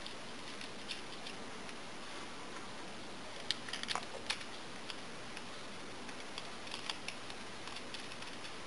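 Faint light clicks of small machine screws and plastic parts being handled, a small cluster of them about three and a half to four and a half seconds in, over a steady hiss.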